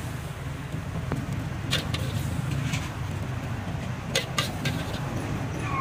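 A metal spatula scrapes and clinks against a steel wok, giving several sharp clinks, most of them in the second half, over a steady low rumble.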